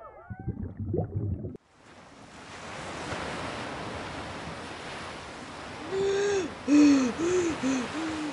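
Low underwater bubbling and gurgling that cuts off suddenly, then ocean waves washing in a steady swelling hiss. About six seconds in, a voice gasps for breath in several short, quick gasps, as if coming up from under water.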